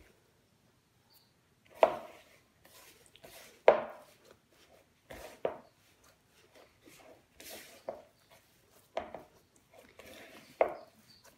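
A hand working soft cookie dough in a bowl, pressing and folding flour into it: soft squishing and scraping, broken by about five sharp thuds a second or two apart as the dough is pressed down against the bowl.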